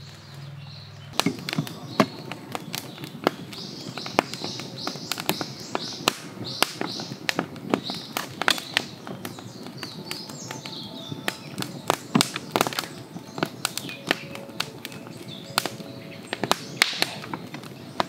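Wood fire crackling in a fire pit, with irregular sharp pops and snaps, while birds chirp in the background for several seconds partway through.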